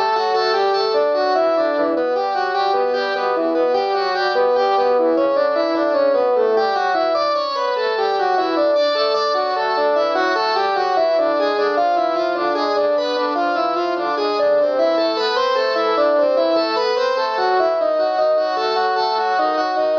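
Panasonic KX-TGD62xE cordless phone playing one of its polyphonic melody ringtones: a fast, continuous tune of short synthesized notes over chords, with a falling run of notes about seven seconds in.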